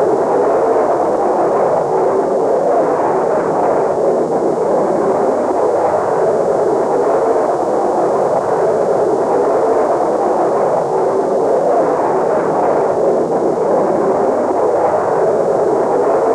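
Steady, dull rush of jet aircraft noise in flight, even throughout with no distinct tones.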